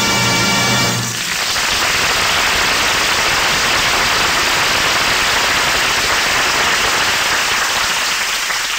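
Music ends about a second in, followed by steady audience applause.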